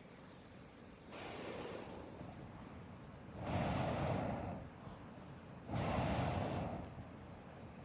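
A person blowing hard on a campfire of damp wood, three long puffs of air about two seconds apart, to coax it into burning.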